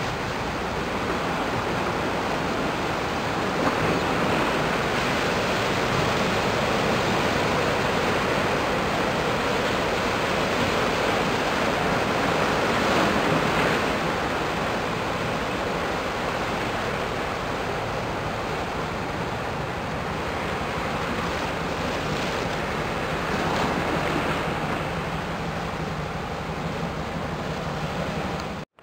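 Steady rushing of wind on the microphone mixed with the wash of water, with no distinct engine tone or horn standing out. The sound drops out for a moment at the very end.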